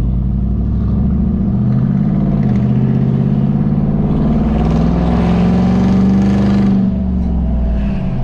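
Chevrolet Tahoe V8 heard from inside the cabin through its new true dual cat-back exhaust with 6x18 tips, loud as it accelerates. The exhaust note climbs in pitch for several seconds, then drops as the throttle eases off near the end.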